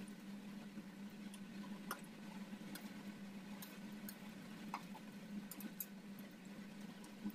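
A metal spoon clinking lightly against a stainless steel bowl while stirring: a handful of soft, irregular clicks over a steady low hum.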